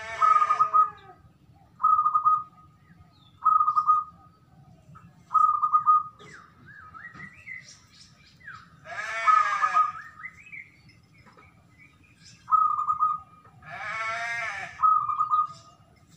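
Caged zebra dove (perkutut) cooing: short pulsed coos repeated every second or two. Other small birds chirp in between, and three louder calls falling in pitch come near the start, about nine seconds in and about fourteen seconds in.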